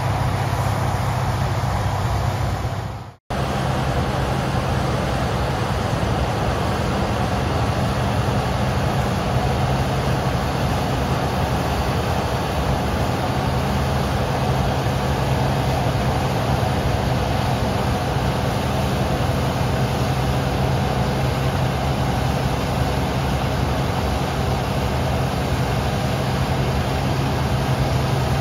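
Bizon Rekord Z058 combine harvester working in standing grain: its diesel engine and threshing machinery make a loud, steady drone under load. The sound drops out for a split second about three seconds in, then carries on unchanged.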